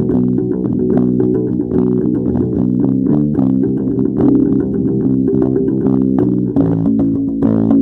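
Music played on plucked guitar and bass guitar, with many overlapping sustained notes and a chord change about six and a half seconds in.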